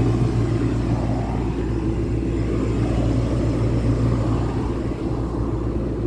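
Trane Horizon DOAS rooftop unit running in heating mode during its startup: a steady low hum and drone from its compressor and fans.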